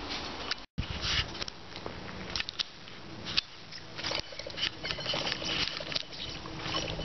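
Dry brush and twigs crackling and snapping as someone pushes through thick cover, with scattered sharp snaps, and the sound cuts out briefly under a second in.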